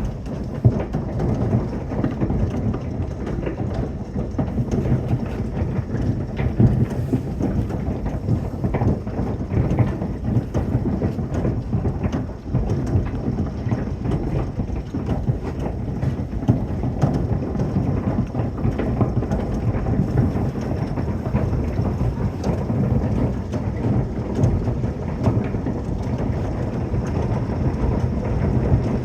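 Hail, about golf-ball size, hitting hard on the roof and heard from the room below. It is a dense, steady clatter of countless impacts, mostly low and dull, with a few sharper, louder hits standing out.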